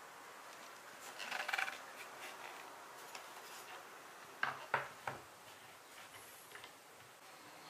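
Bamboo folding camp table with aluminium legs being handled: a short scrape or rub about a second in, then three sharp knocks in quick succession a little past the middle, as the board and its metal fittings are set down and moved.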